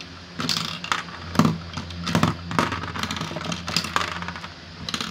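Marbles rattling and clicking inside a Lego-brick marble dispenser as it is shaken and its slider worked to free stuck marbles, with dispensed marbles clattering out onto a Lego baseplate. Irregular hard plastic clicks.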